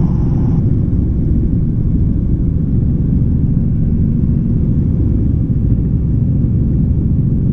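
Robinson R44 helicopter's six-cylinder Lycoming piston engine running steadily with the rotor turning, a low, even rumble. It is at start-up, while the clutch engages the rotor drive before take-off.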